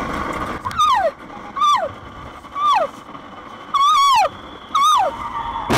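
A person inside the car screaming five times, about once a second; each shriek falls sharply in pitch, and the fourth is longer and wavering, over steady road noise. It is the sound of panic as the car surges out of control in a sudden unintended acceleration.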